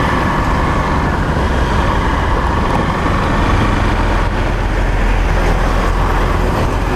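Honda XRE 190 motorcycle's single-cylinder engine running steadily as the bike rides over loose, soft sand, with a loud, unbroken low rumble.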